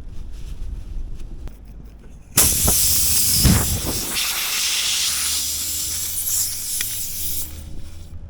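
Compressed air hissing loudly out of a punctured car tire, where the leaking plug has been pulled out. It starts suddenly about two and a half seconds in, with a few knocks, and dies away near the end.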